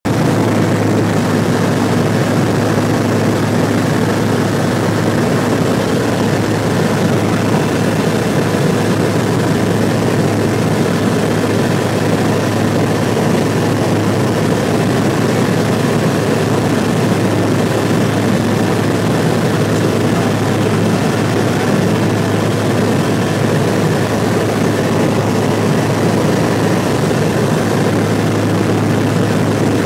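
Tecnam P92 light aircraft's piston engine and propeller running steadily at cruise power, heard from inside the cockpit as a loud, constant drone with a low hum under it.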